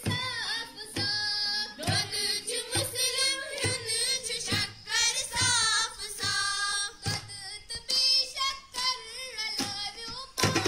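Young girls singing a song together, with a steady beat struck about once a second.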